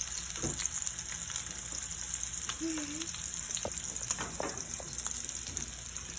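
Wagyu rib-eye steak searing in hot vegetable oil in a frying pan: a steady sizzling hiss with scattered small crackles.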